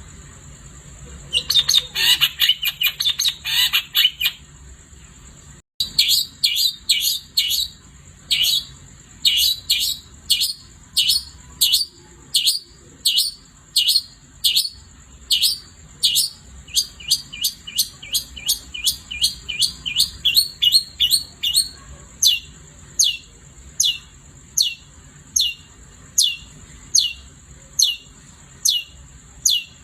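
Long-tailed shrike (cendet) singing: a burst of harsh rapid chatter, then a long series of quick, sharp downward-sweeping whistled notes, about two or three a second. A steady high tone runs underneath.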